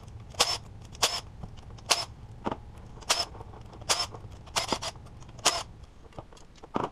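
Sharp metallic clinks, about ten at irregular intervals, each with a brief ringing: a socket and steel bolts knocking on metal as the lower intake manifold bolts are taken out.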